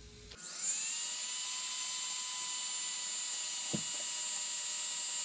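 Small handheld electric power tool spinning up and then running at a steady high-pitched whine, with one brief knock about halfway through.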